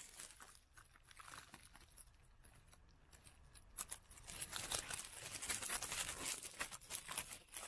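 Grass stems brushing and crackling against the microphone of a camera set down in tall grass: a faint, crackly rustle, quieter for a few seconds and picking up again about four seconds in.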